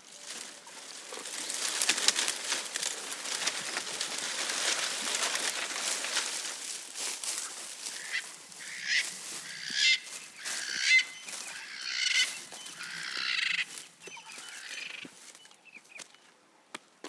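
Giraffe browsing, a dense rustling and crackling of leaves and twigs as it strips foliage, loudest in the first half. Then, about halfway through, a bird gives a series of short honking calls for several seconds.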